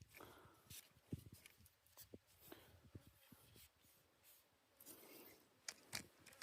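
Near silence, with faint scattered clicks and light rubbing or scratching sounds.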